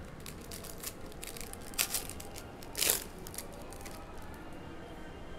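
Trading card pack wrapper and cards being handled: a string of short crinkles and scrapes, with two louder rips about two and three seconds in, as a Donruss Basketball pack is torn open.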